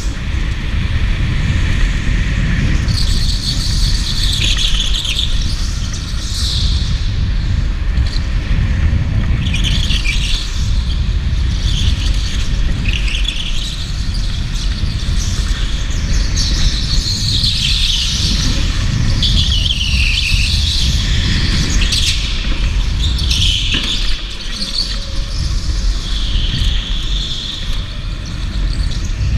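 Electric go-kart tyres squealing again and again as the kart slides through corners on a smooth concrete floor, a high squeal every few seconds over a steady low rumble of the kart running.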